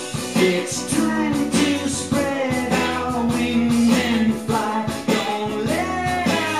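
Music: a pop song with a singing voice over guitar and band accompaniment.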